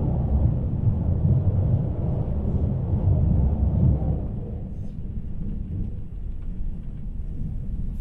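A JR Hokkaido 789 series electric train running over a steel truss bridge, heard inside the carriage: a loud, steady low rumble that drops away about four seconds in as the train comes off the bridge, leaving a quieter running noise.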